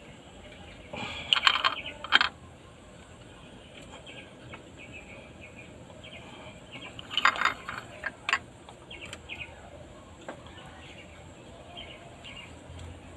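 Metal-on-metal clinks and rattles of a pipe wrench turning a homemade puller on a Cat 3116 cylinder head, pulling out a broken injector sleeve. They come in two short bursts, about a second in and again about seven seconds in. Faint bird chirps come between the bursts.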